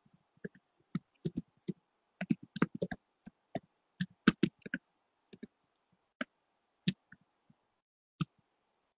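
Computer keyboard being typed on in irregular bursts of sharp clicks, thickest between about one and five seconds in, then only a few scattered keystrokes, over a faint steady hum.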